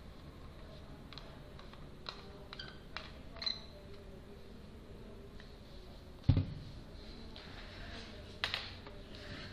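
Quiet room tone with a few scattered light clicks, and one louder dull thump about six seconds in.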